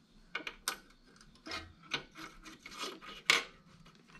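Screwdrivers clicking and scraping against metal while a valve and its spring are worked back into a small snowblower engine. An irregular run of short clicks and scrapes, the loudest about three seconds in.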